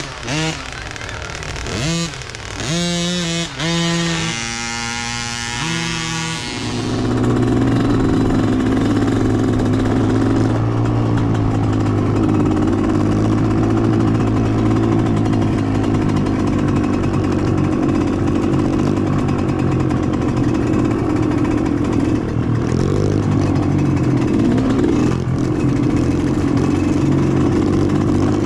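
Dirt bike engines revving in short rising pulls for the first six seconds or so, then running steadily at an even speed and a little louder.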